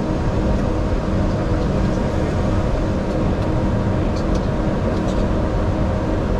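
Steady rushing airflow and jet engine noise heard inside an airliner's cockpit, low over the runway just before touchdown.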